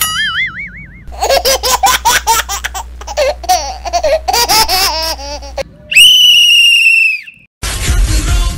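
A short warbling, rising tone, then several seconds of high-pitched laughter, then one long steady blast on a plastic sports whistle about six seconds in. Music starts near the end.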